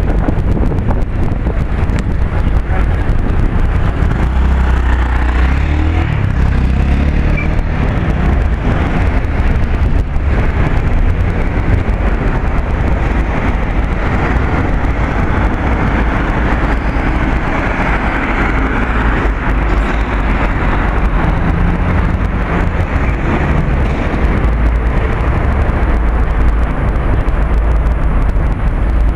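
Street traffic: cars passing close by, with a heavy, fluctuating low rumble of wind on the microphone.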